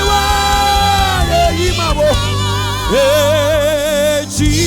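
Gospel worship song: a singer holds two long notes, the second with a wide vibrato, over band accompaniment with a steady bass line.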